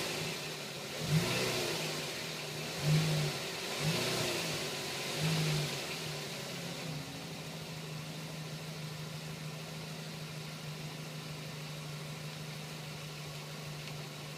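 Car engine revved in short blips, about four times over the first seven seconds, then idling steadily. The owner complains of a strange engine sound between 1500 and 2000 rpm in this six-month-old, low-mileage car.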